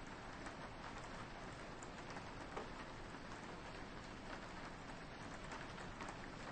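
Soft, steady rain falling on a window, an even hiss with scattered light drop ticks.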